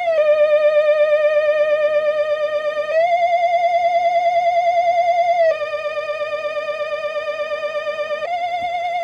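Retro Halloween spooky music loop: a single eerie, wavering tone with steady vibrato, held long and stepping between two notes, dropping at the start, rising about three seconds in, dropping again past the middle and rising near the end.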